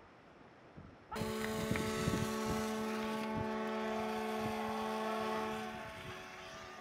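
Several horns sounding together in one long blast of about five seconds, starting suddenly after a second of near quiet, then fading. It is a welcome salute to an ocean-rowing boat finishing its Atlantic crossing.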